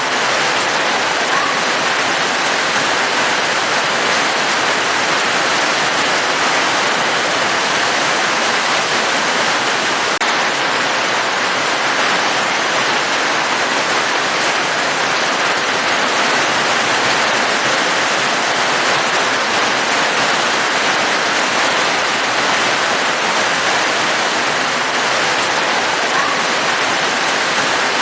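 Steady falling water: an even, unbroken hiss that neither builds nor fades.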